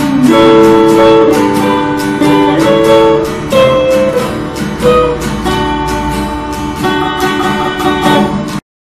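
Acoustic guitar strummed in a steady rhythm with an electric guitar playing held melody notes over it, an instrumental passage without singing. The music cuts off abruptly near the end.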